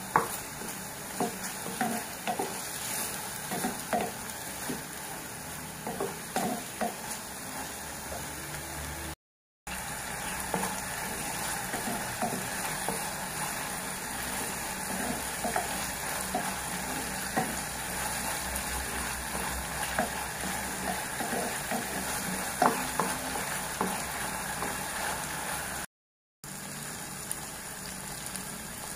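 Ground onion, garlic and ginger with tomatoes, curry leaves and whole spices sizzling steadily as they fry in oil, while a wooden spoon stirs and knocks against the pot. The sound drops out briefly twice.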